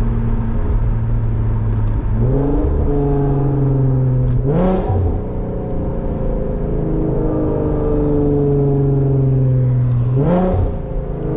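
Infiniti Q50's V6 engine and loud exhaust under way: the engine note climbs as the throttle is pressed about two seconds in and again about halfway, drops back, then runs steadily with a slowly falling note, before climbing and dropping once more near the end.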